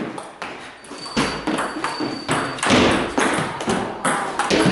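Table tennis play: celluloid-type balls struck by paddles and bouncing on tables, a quick irregular run of clicks and knocks with some duller thuds among them.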